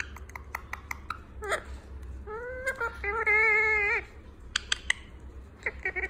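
Rose-ringed parakeet nibbling at a ballpoint pen, its beak making quick clicks and taps, with a long, wavering call between about two and four seconds in.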